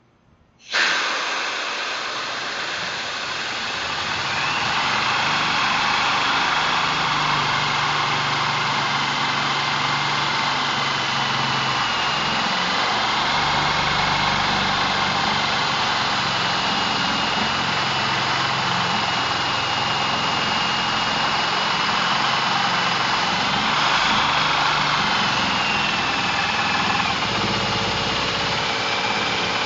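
Corded half-inch variable-speed hammer drill, used as a plain drill, turning a high-speed-steel step bit into steel angle while a compressed-air blow gun sprays the bit to keep it from overheating. It starts abruptly about a second in: a loud steady hiss of air over the motor's hum, with a wavering high whistle.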